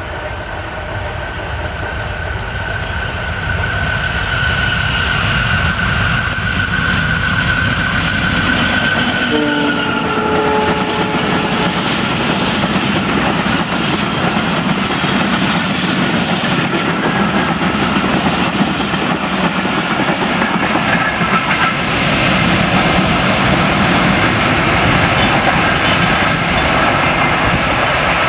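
A WDM-3A diesel locomotive hauling an express passenger train approaches and passes at speed, its horn sounding one long high note that drops in pitch as the locomotive goes by about ten seconds in. Then comes the dense clatter of the coaches' wheels on the rails, which grows louder and stays loud to the end.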